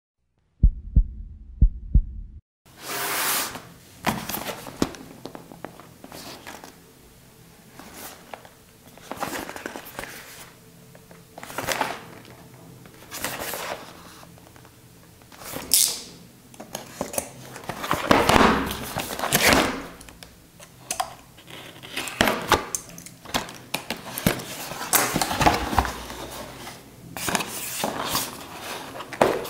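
A few short, deep thumps of an intro sting in the first two seconds. Then a cardboard retail box is handled and opened by hand: rustling, sliding and scraping of the card, with soft knocks as it is turned over and its flip-top lid is lifted.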